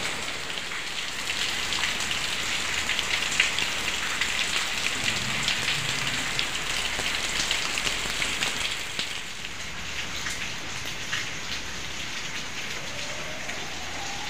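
Heavy rain falling steadily, with many close individual drops splashing; it eases slightly about two-thirds of the way through.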